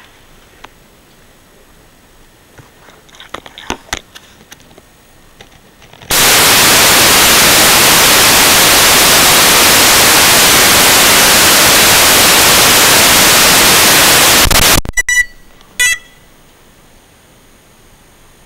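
Loud, steady hiss of static from an analog FPV video receiver as the drone's signal drops out, cutting off suddenly when the signal returns, followed by a few clicks and short high beeps. Faint crackles come before the hiss.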